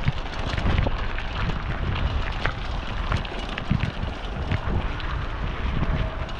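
Wind buffeting the chest-mounted GoPro's microphone while riding a mountain bike, with a low rumble and many short clicks and knocks from the bike over rough ground.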